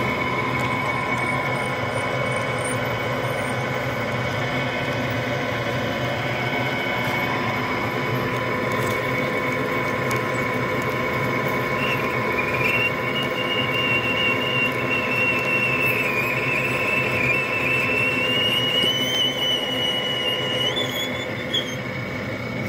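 Drill press running with a steady motor hum as its bit cuts through a thick steel plate. About halfway through, a high wavering squeal from the bit biting the steel sets in, creeps up in pitch and stops shortly before the end.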